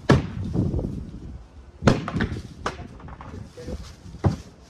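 A long-handled digging tool chopping into the ground, four strikes at uneven gaps of about a second or two, the first two the heaviest.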